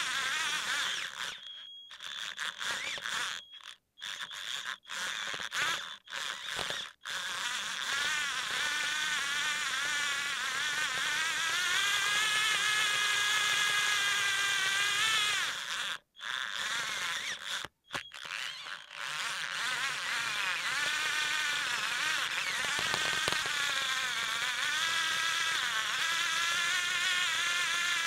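Small electric gearmotors of a Tamiya twin-motor gearbox driving a tracked tank, a high buzzing whine that wavers in pitch as it steers and cuts out and restarts several times, most often in the first quarter and twice around the middle.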